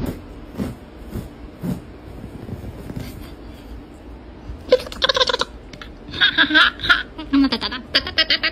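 A steady background hiss with a few soft knocks, then from about halfway through a person laughing in several loud bursts, the last ones coming in quick pulses.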